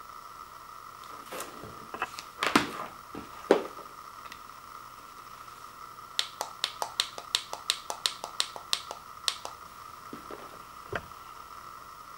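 Plastic buttons on an Equate heating pad's handheld controller clicking. A few scattered clicks and handling knocks come first, then a quick run of about a dozen clicks, roughly four a second, as a button is pressed over and over to step the heat setting. One last click comes near the end.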